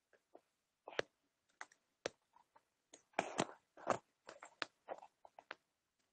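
A scattered series of short clicks, taps and knocks, irregular and busiest a little past halfway, picked up through a video-call participant's microphone with dead silence between them.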